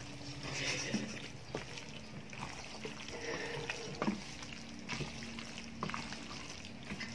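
Wooden spatula stirring sauced elbow macaroni in a stainless steel bowl: wet squelching with scattered light knocks.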